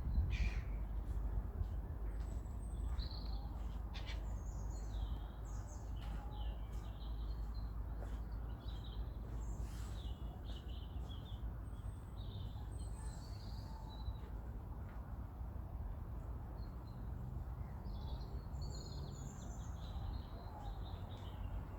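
Small birds singing and calling, many short high chirps and twitters overlapping through the whole stretch, over a steady low rumble.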